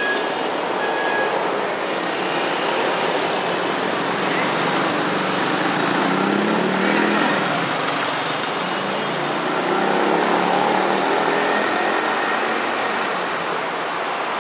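Steady city street traffic noise, a continuous wash of passing vehicles.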